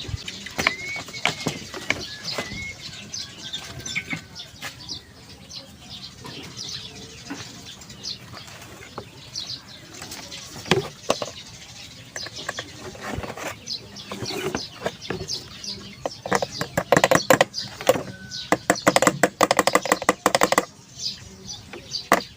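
Scattered light metal taps and clicks as an exhaust fan's motor shaft is aligned and its pin fitted back, ending in a quick run of many sharp taps near the end. A bird chirps a few times in the background early on.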